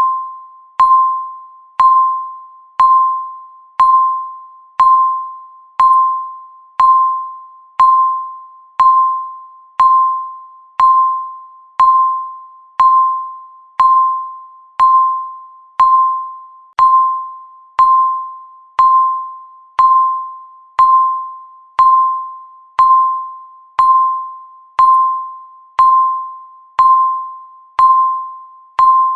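Countdown timer's electronic tick sound: a short, clear chime-like tone once every second, each dying away quickly before the next.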